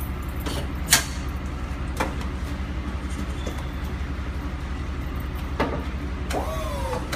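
Tow truck's engine idling steadily, with a few sharp knocks. Near the end a whine starts that dips in pitch and then holds level.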